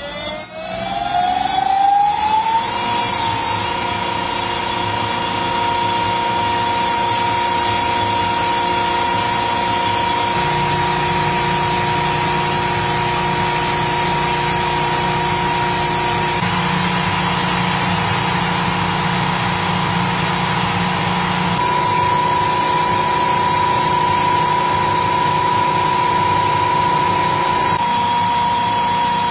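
Electric motorcycle rear hub motor spinning the lifted rear wheel with no load. It gives a rising whine as it spins up over the first couple of seconds, then holds a steady high whine with a few small shifts in tone.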